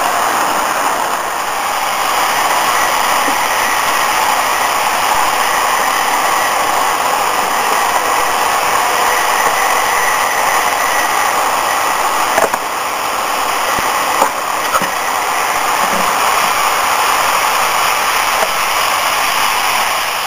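O-gauge model train, an MTH Premier F59PHI locomotive with Amfleet cars, running on three-rail track with a steady running noise. A few sharp clicks come through past the middle.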